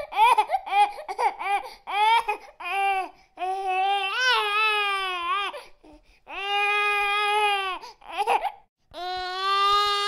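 A baby crying: a quick run of short, choppy sobs for the first few seconds, then three long drawn-out wails with brief pauses for breath between them.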